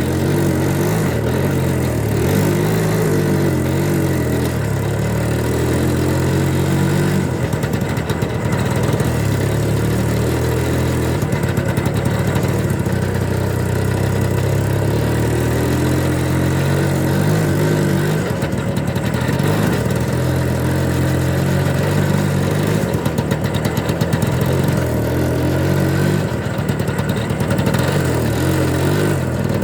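Engine of a homemade Muravey-scooter trike running steadily as it is driven, its pitch rising and falling every few seconds with the throttle.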